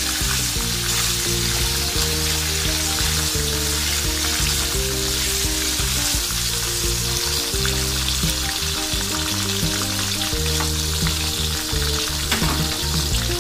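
Raw banana fries deep-frying in hot groundnut oil that has had water sprinkled on it, sizzling steadily, stirred now and then with a slotted spatula; the sizzle is the moisture still cooking out, a sign the fries are not yet done. Soft background music with low notes runs underneath.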